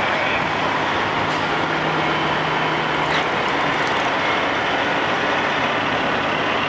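Semi-truck diesel engines running as the tractors roll slowly past, a steady rumbling noise with a low hum for the first few seconds. A few brief sharp high sounds come about a second in and again around three to four seconds in.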